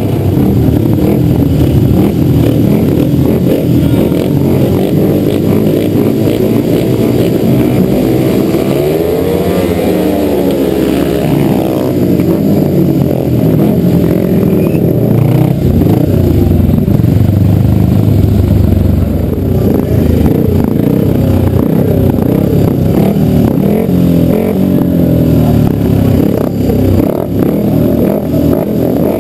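Several speedway motorcycles running close by, engines revving up and down.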